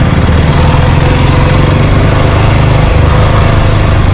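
The rider's own motorcycle engine running at low speed while creeping through slow traffic: a steady low engine note under a constant hiss of air and road noise.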